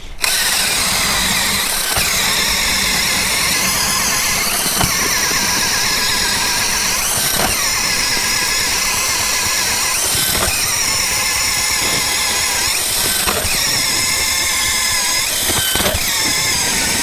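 Cordless DeWalt drill spinning a Lite-Flite ice auger as it bores through thick ice: a steady, high motor whine under load, dipping briefly every two to three seconds.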